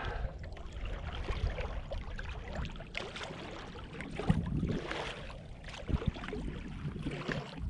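Sea kayak on open ocean swell: water sloshing and splashing irregularly against the hull, over a steady low rumble of wind on the microphone.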